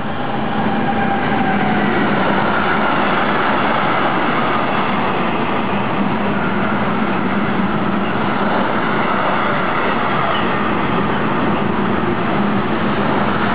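Long intermodal freight train, hauled by an SBB Cargo electric locomotive, running through at speed: a loud, steady rolling rumble of wagon wheels on the rails with a steady low hum.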